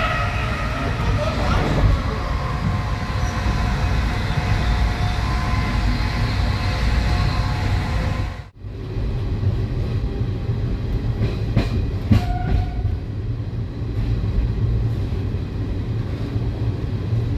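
Inside an ICF passenger coach of a moving train: the steady rumble of wheels on the track, with some steady tones over it in the first half. The sound breaks off for a moment about halfway through. After that the running is duller, with a few short clicks, as the train comes alongside a station platform.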